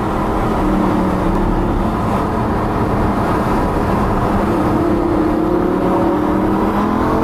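Car engine and road noise heard from inside the cabin while driving at road speed; the engine note climbs gradually in the second half as the car accelerates.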